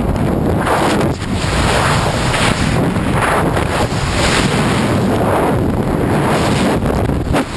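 Loud freefall wind blasting over a skydiver's camera microphone, swelling and easing in gusts about a second apart.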